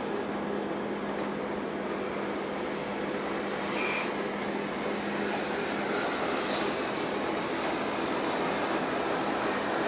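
Kitson & Co 0-6-0T steam tank locomotive moving slowly, with a steady hiss of escaping steam and a couple of brief high squeaks.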